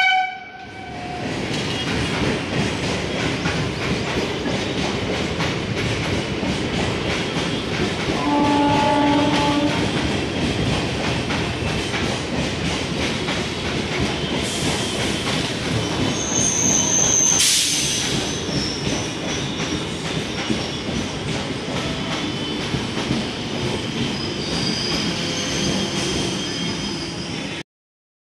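12-coach EMU local train running along the track, its wheels clattering steadily over the rail joints, with thin high squeals from the wheels. A short horn blast sounds about eight seconds in, and the sound cuts off suddenly near the end.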